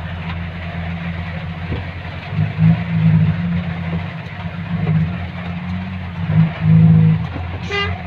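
A motor vehicle's engine running steadily under a constant hiss of noise, swelling louder twice, a few seconds in and again near the end.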